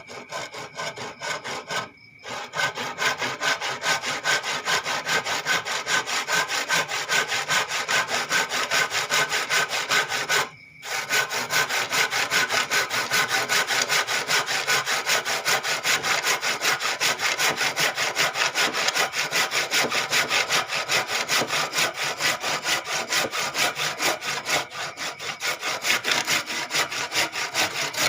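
Hand saw cutting through wood with fast, even back-and-forth strokes. The sawing pauses briefly twice, about 2 seconds and 10 seconds in.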